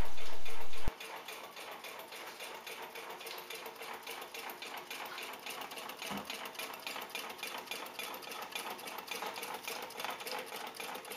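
Small gamma-configuration Stirling engine running, its flywheel, cranks and pistons ticking in a fast, even rhythm, with a faint steady hum beneath. A louder low hum at the start cuts off suddenly about a second in.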